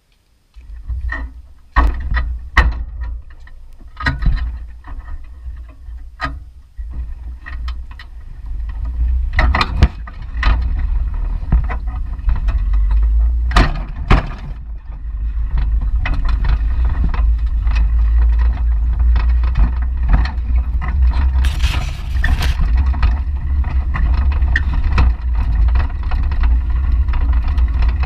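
Bicycle riding with the camera mounted in the metal front basket: knocks and rattles of the basket as the beach cruiser gets moving, then a loud, steady low wind-and-road rumble as it rides along, with a brief burst of high hiss about three-quarters of the way through.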